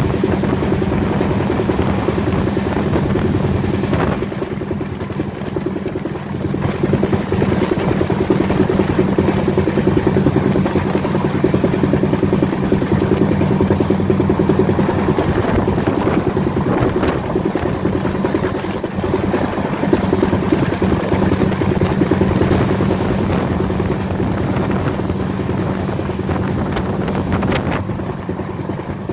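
Express passenger train running at about 130 km/h, heard from an open coach door: a steady rumble and rattle of wheels on the rails with rushing air.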